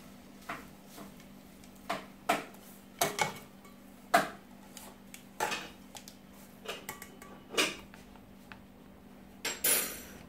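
Metal kitchen tongs clicking and clinking against bowls and a plastic tub as chicken pieces are picked up and dropped into flour: about a dozen sharp, irregular knocks, with a longer scrape near the end.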